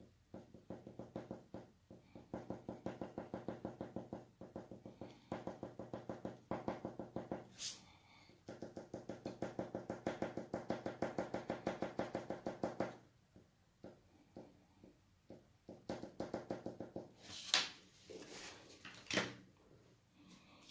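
Cretacolor MegaColor coloured pencil hatching rapidly back and forth on heavy paper, about seven or eight strokes a second, in two long runs broken by a short pause. A shorter run follows near the end with a couple of sharper scratches.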